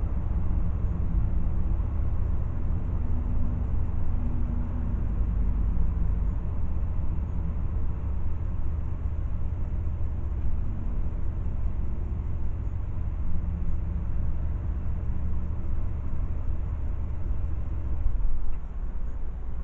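Car cabin noise while driving: a steady low rumble of engine and road noise that eases slightly near the end.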